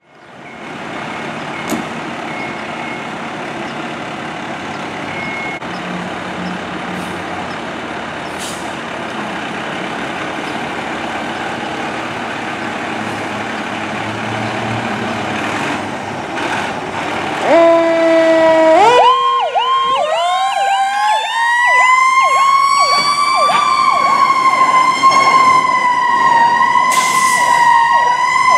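Seagrave Marauder II fire rescue truck running as it leaves the station. About 17 seconds in, a short two-step horn blast sounds, then its siren rises to a high pitch and holds there, wavering slowly.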